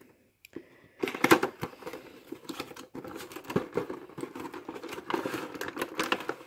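Cardboard toy box being opened and a clear plastic blister tray slid out of it, crinkling and crackling, starting about a second in.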